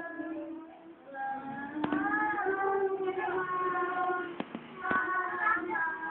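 A group of children singing together in long held notes, with a short break about a second in and a few sharp clicks.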